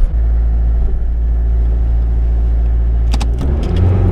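Mitsubishi Pajero's diesel engine running steadily, heard from inside the car, with a few sharp clicks a little after three seconds and the engine revving up and down near the end. The driver says the engine takes gas by itself and has been running rough, and suspects something got wet in a water crossing.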